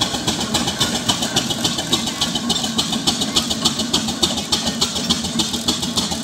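Steam roller running along at a slow pace, its engine giving a fast, even beat with a steady low hum underneath.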